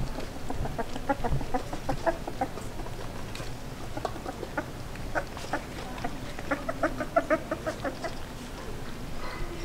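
Border collie puppies eating their first solid food from a steel bowl: wet smacking and lapping mixed with many short, high squeaks and grunts, busiest in the second half.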